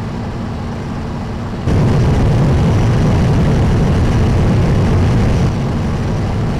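Sound effect of a turbofan engine running in a test tunnel with air rushing through it: a steady, deep noise that jumps louder about two seconds in and eases down slightly near the end.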